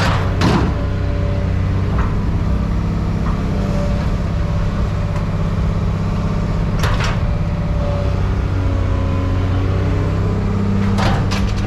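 An engine or motor runs steadily with a low hum, and a few sharp metallic knocks of scrap being handled break in at scattered moments, with a quick cluster of them near the end.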